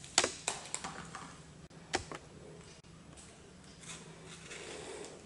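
Small knife-and-chilli handling sounds while green chillies are slit: a few sharp clicks and taps, the loudest near the start and about two seconds in, with faint rustling near the end.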